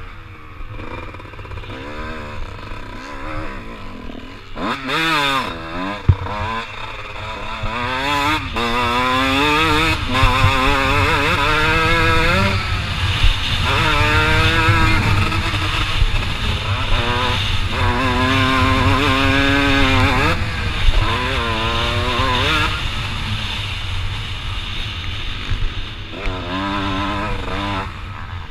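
Kawasaki KX125 two-stroke motocross bike engine revving up and dropping off again and again as the throttle is worked around a dirt track, its pitch climbing and falling. Heard with a steady low rumble on the helmet-mounted microphone and a few sharp knocks.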